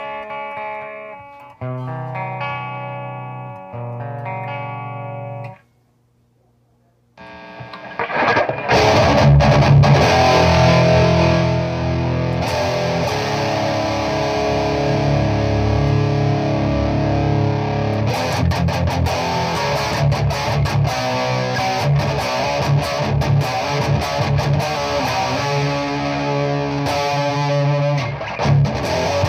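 Electric guitar played through a Framus Dragon amp head. A few ringing chords come first, then a brief stop about six seconds in. After that comes loud, heavily distorted playing that continues to the end.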